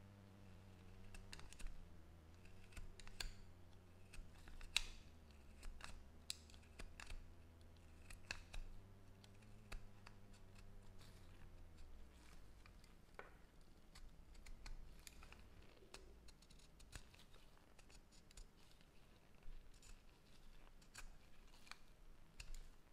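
Faint, irregular clicks and snips of small hand-tool work on an LED light, with a low steady hum that stops about halfway through.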